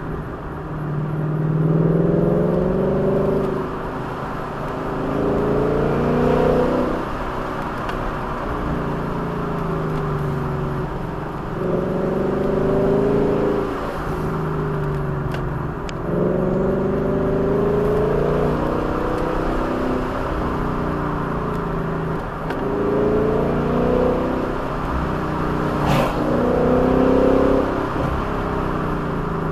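Vehicle engine heard on board, rising in pitch as it accelerates and falling back as it eases off, about six times over, as it is driven along a winding mountain road, over steady road and wind noise. A single sharp click near the end.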